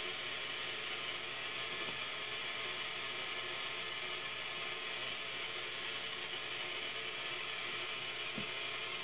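Steady electrical hiss and buzz from a running Lakhovsky multiple wave oscillator, with a faint click about two seconds in and a short low knock near the end.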